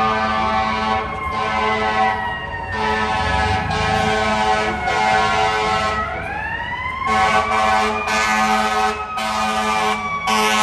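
FDNY Tactical Support Unit 1 truck responding: a siren gliding down in pitch and then winding back up about six seconds in, over a series of air horn blasts, each a second or so long with short breaks between.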